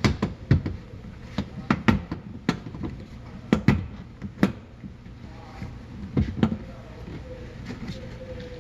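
Plastic tailgate trim panel being pulled off a Hyundai Santa Fe tailgate: a run of sharp, irregular clicks and knocks as its retaining clips snap loose and the panel knocks against the tailgate.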